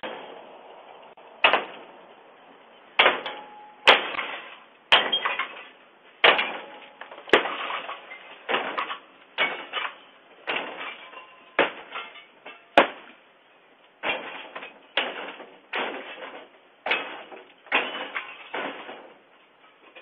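A series of loud bangs, roughly one a second and slightly uneven, each stopping sharply, heard through a doorbell camera's microphone.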